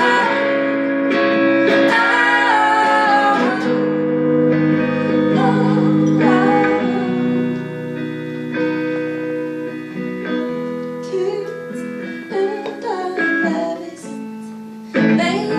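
Live song played on guitar with a woman singing. The voice carries the first few seconds, then mostly drops out so the guitar carries on alone, with short sung phrases returning later and again near the end.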